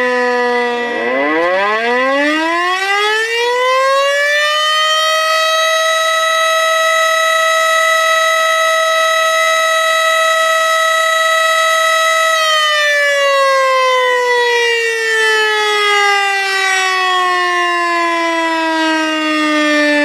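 Civil-defense-style warning siren. It winds down to its low pitch, then winds up over about four seconds to a steady high wail. It holds that wail for about eight seconds, then slowly winds back down.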